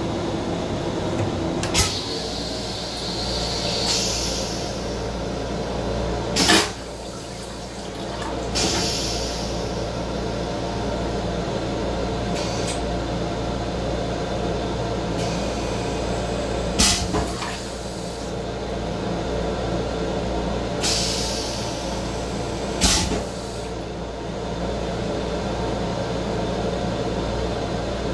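A rail-car restroom toilet running through its flush cycle after the button press. Four sharp valve clunks are spread over the cycle, with short hissing water rinses between them, over the steady hum of the rail car.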